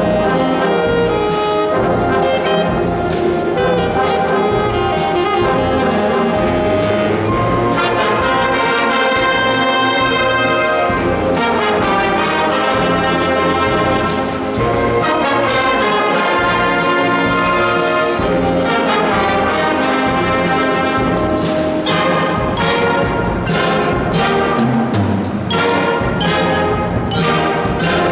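Elementary school brass band playing an arrangement of an anime theme, trumpets and trombones carrying the melody. Near the end the band switches to short, punched accented chords.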